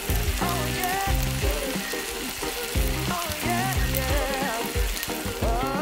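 Beef and gopchang fried rice sizzling in a hot iron griddle pan over a gas burner, under background music with a steady beat.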